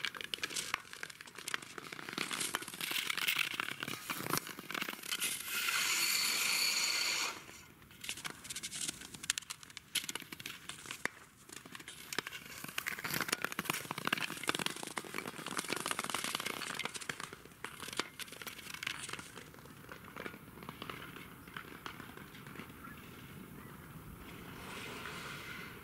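Dense, irregular crackling and scraping on thin natural ice, with a louder rasping stretch about six seconds in. It eases to a quieter, more even hiss after about nineteen seconds.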